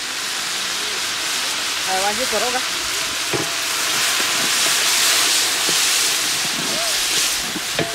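Food frying in hot oil in a large aluminium pot, sizzling loudly as a dark sauce is poured in from a bottle, the hiss swelling toward the middle. A few knocks of the wooden stirring stick against the pot.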